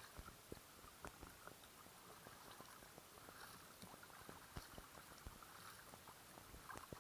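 Faint kayak paddling: paddle blades dipping into calm water with a soft swish about once a second, and small irregular ticks of water dripping and lapping against the hull.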